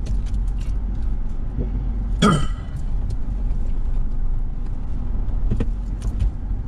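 Car cabin sound while creeping slowly into a parking spot: a steady low engine and road rumble with scattered light clicks and rattles. About two seconds in comes one short, loud pitched sound, the loudest moment.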